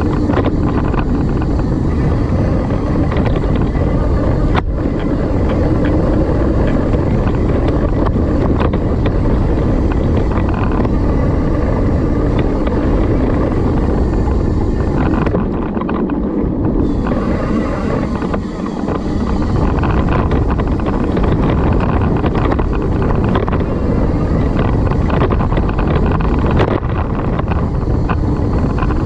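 Wind rushing over the microphone of a mountain bike ride downhill, with tyres rolling over the dirt trail and the bike rattling on rough ground. It eases for a moment around the middle.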